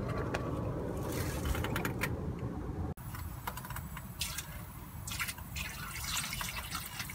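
Water pouring and dripping, with scattered small splashes and clicks after an abrupt break about three seconds in.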